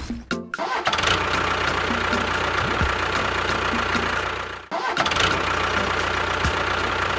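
A motor running steadily with a constant whine, cutting out about four and a half seconds in and starting again straight away.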